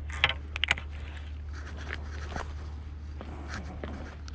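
Handling noise from a fishing rod and reel held right at the camera: a cluster of sharp clicks and scrapes in the first second, then a few faint ticks.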